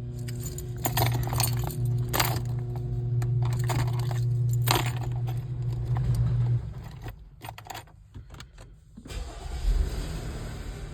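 Keys jangling and clicking at the ignition, then about nine seconds in the Jeep Wrangler's engine starts and settles into a steady idle.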